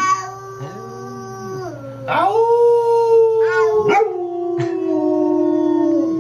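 A dog howling: long drawn-out howls that slide slowly down in pitch, several in a row and overlapping. A lower person's howl joins in briefly about a second in.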